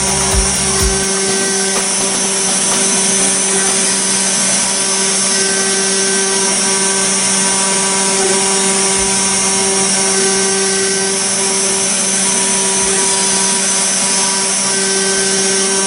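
DIY CNC router's spindle milling a brass plate: a steady high whine over a continuous cutting noise. It cuts off suddenly at the end.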